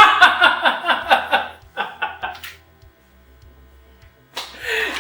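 Men's voices in quick, pulsing bursts, laughing, over a faint low hum. There is a lull in the middle.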